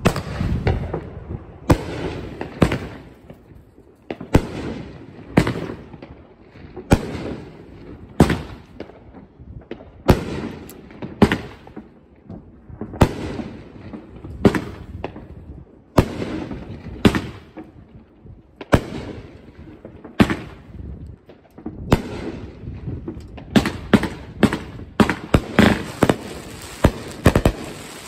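500-gram consumer firework cake firing shot after shot, a sharp bang about every second as each shell goes up and breaks overhead, speeding up into a rapid string of bangs near the end.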